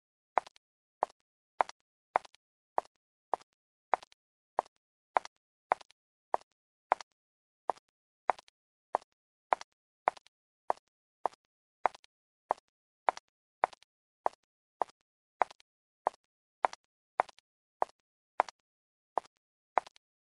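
A steady, evenly spaced series of short plops, like drops falling, about one every 0.6 seconds, with complete silence between them.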